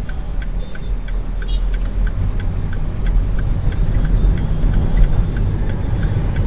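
Car driving, with engine and road rumble heard inside the cabin and the turn-signal indicator ticking steadily about three times a second.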